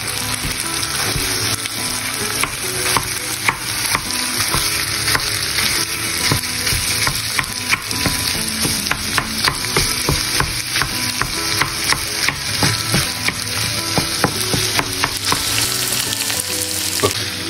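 Minced pork and diced onion sizzling in a frying pan, with a wooden spatula tapping and scraping against the pan many times a second as the mince is broken up.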